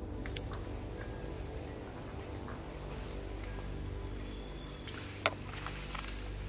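A steady, high-pitched drone of rainforest insects runs over soft background music. A single sharp knock comes about five seconds in.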